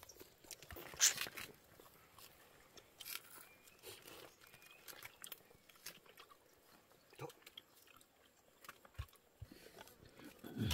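People eating with their hands: faint chewing and mouth sounds with scattered small clicks and light scrapes, the sharpest click about a second in.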